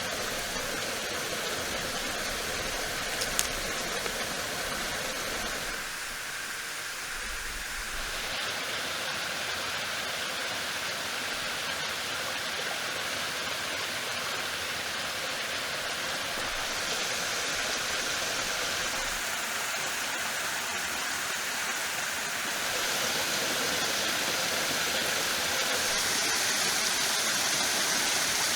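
Steady rushing noise of running water, stepping louder or quieter at a few points, with a single faint click about three seconds in.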